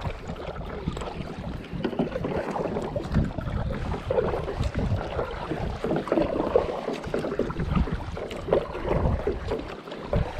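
Kayak being paddled: the paddle blades dip and splash in the water in irregular strokes.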